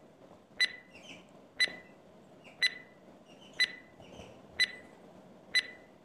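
Countdown timer sound effect: a sharp clock-like tick with a brief high ring, once every second, six times.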